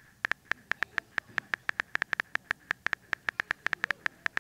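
Rapid key-tap clicks of a phone's on-screen keyboard as a text message is typed, about seven taps a second, over a faint steady high tone.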